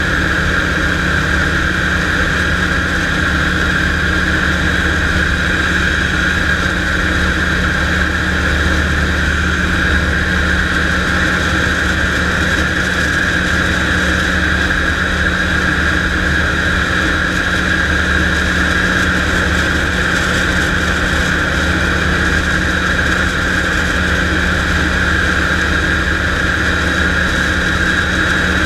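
Storch light aircraft's piston engine and propeller running steadily in flight, heard from inside the cockpit as a loud, even drone that holds one pitch throughout.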